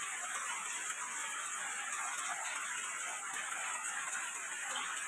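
Rain falling steadily, an even patter with scattered individual drop ticks.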